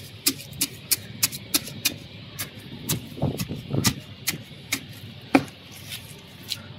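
A hand tool jabbed again and again into soil mixed with eggshells and peel scraps in a plastic pot, working the kitchen waste into the soil: a string of short, sharp knocks and crunches, irregular, about two to three a second.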